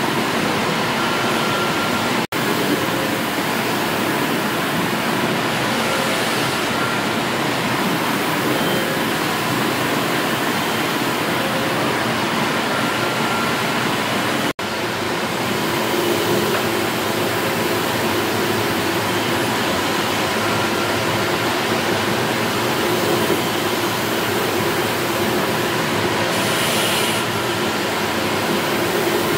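1878 Goddard & Massey steam beam engine running: a steady hiss and rumble with no clear beat, cutting out briefly twice, about two seconds and about fourteen seconds in.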